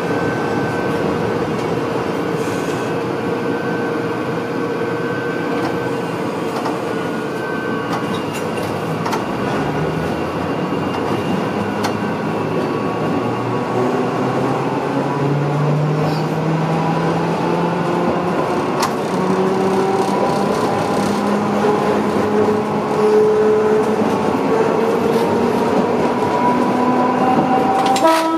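Electric tram running along its track, heard from inside the car: a steady rumble of wheels on rail. Partway through, the motor whine starts rising in pitch as the tram picks up speed.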